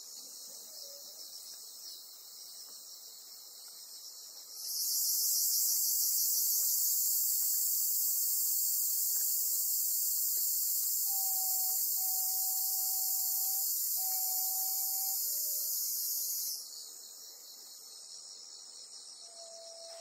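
A cicada calls loudly with a dense high buzz for about twelve seconds, starting abruptly about four and a half seconds in and cutting off just as abruptly, over a steady background chorus of high-pitched insect song.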